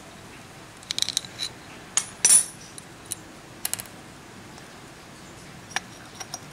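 Metal parts of a motorcycle starter motor clinking and knocking as it is taken apart by hand, the end cover being worked off the housing with a screwdriver. Scattered short, sharp clinks in small clusters, the loudest a little over two seconds in.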